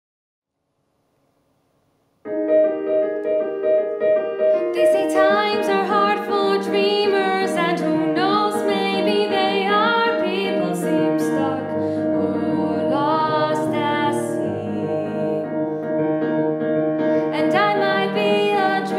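Piano accompaniment begins about two seconds in with sustained chords, and a woman's singing voice comes in over it a few seconds later, a musical-theatre song.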